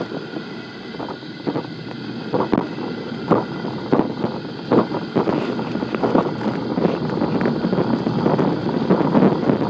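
Interior of a moving ambulance: steady road rumble with frequent rattles and knocks from loose equipment, growing louder toward the end.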